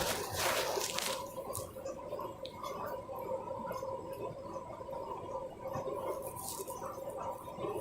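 Candy washing machine on its rinse, water sloshing and gurgling in the tumbling drum over a steady machine hum, with a louder splash in the first second.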